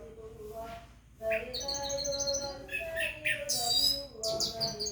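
Orange-headed thrush singing rapid, varied high chirping phrases, starting about a second in, with a loud trill in the middle. Under it runs a faint, slowly wavering chanted voice, the call to prayer or Quran recitation that sets the bird singing.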